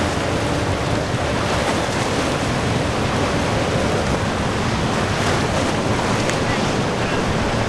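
Rushing surf and boat wake with wind buffeting the microphone, over the steady drone of a Boston Whaler's Mercury 200 hp outboard motor running under way.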